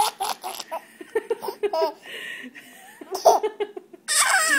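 A baby giggling and belly-laughing in short repeated bursts of pitched squeals, with a louder, noisier burst of voice near the end.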